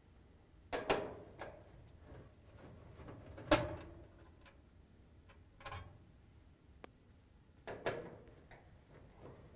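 Screwdriver and screws clicking and knocking against a dryer's sheet-metal cabinet as the front panel screws are taken out: about four sharp metallic clicks, the loudest a little past the midpoint, with faint ticking between them.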